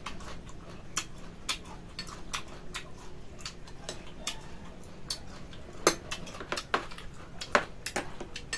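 Spoons and small bowls clicking and tapping against each other and the metal serving tray during a meal: irregular light clicks, with a few louder clinks about a second in and again around six and seven and a half seconds.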